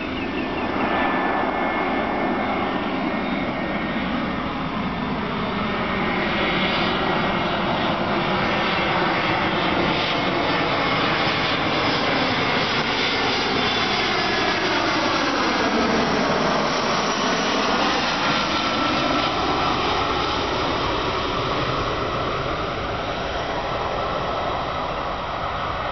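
Airbus A319's CFM56 jet engines on final approach, a steady loud rumble and whine. A swirling, phasing sweep runs through it as the airliner passes low overhead about two-thirds of the way through, and the sound then draws away.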